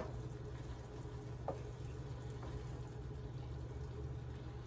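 Skillet of noodles and chicken in sauce on a slow simmer with a faint sizzle, stirred with a wooden spoon that taps the pan sharply right at the start and lightly a couple more times. A steady low hum runs underneath.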